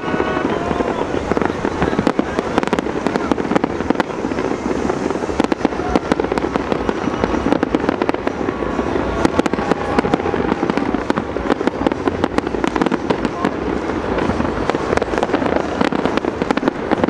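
Aerial fireworks display: a dense, unbroken barrage of bangs and crackling bursts from many shells going off at once.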